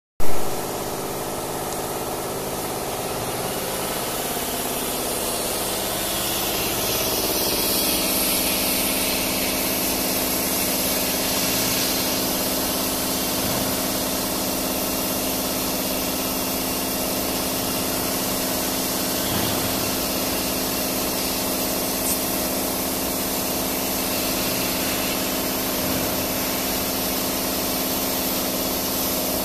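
A Philicam FLDM1325 150 W CO2 laser cutter running as it cuts wood: a steady machine hum with a few held tones under an airy hiss. There is a brief loud bump at the very start.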